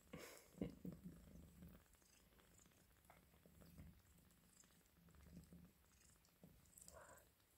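Ragdoll cat purring faintly while nursing her kittens, a soft low hum in repeating pulses. A sharp click about half a second in and a short higher sound near the end stand out above it.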